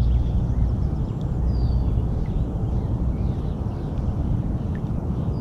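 Steady low rumble of wind on the microphone, with several faint, short chirps and whistles of small birds.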